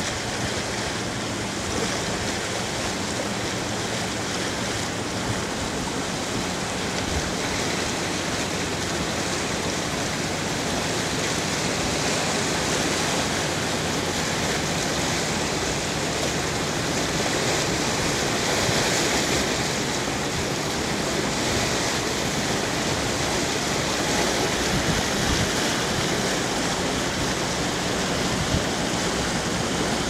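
Steady rush of water from a container ship's bow wave as the hull pushes through the river, with a faint low hum underneath.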